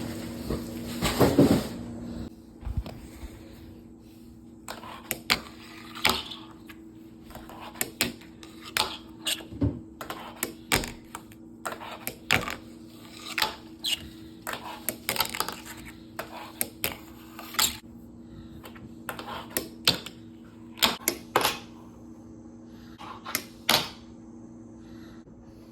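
Wooden fingerboard deck clacking on a hard surface during tricks: irregular sharp clicks as the tail pops and the board lands, with a steady low hum underneath.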